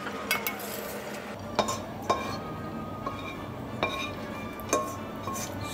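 A metal spatula knocks and scrapes against a frying pan and a stainless-steel bowl as the pan is emptied, giving about six sharp clinks. Background music plays underneath.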